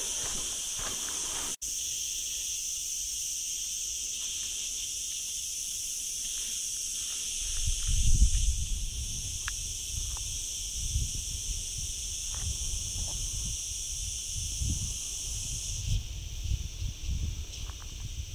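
Cicadas buzzing in a steady, high-pitched chorus that cuts out for an instant about one and a half seconds in. From about eight seconds in, irregular low thuds and rumbling come and go beneath it, loudest at their start.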